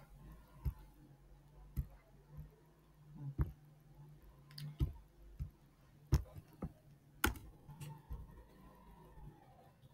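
Computer mouse clicking: a string of short, sharp clicks at uneven spacing, roughly one a second, over a faint low hum.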